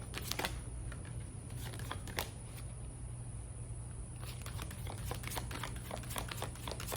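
Oracle cards being shuffled by hand: a few card clicks near the start and one about two seconds in, then a quicker run of card clicks from about four seconds on, over a steady low hum.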